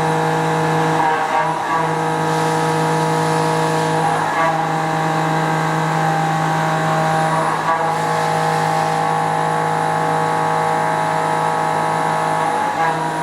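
Quaser MV 184 machining center high-speed milling a metal plate: a steady, loud machine whine of several held tones from the spindle and cutter, with a brief wobble every few seconds.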